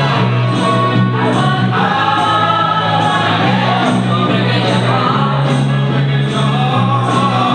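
Soul music played loud by a DJ, with singing voices over a steady bass line.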